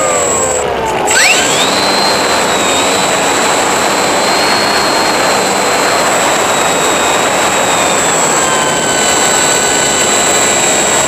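Radio-controlled foam model airplane's motor and propeller whining in flight, heard right beside the propeller, over a steady rushing noise. About a second in the whine dips and then rises sharply, and later in the flight it steps down a little in pitch.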